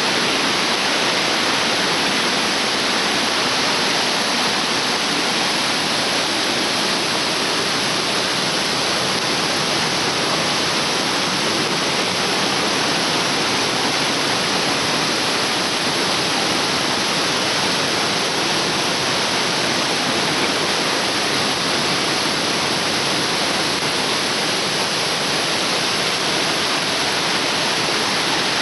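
Waterfall pouring down a 27.5-metre drop: a steady, unbroken rush of falling water.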